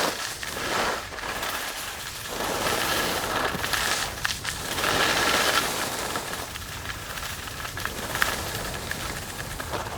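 Skis sliding and scraping over snow, a continuous rasping hiss that swells and fades every second or two with the turns.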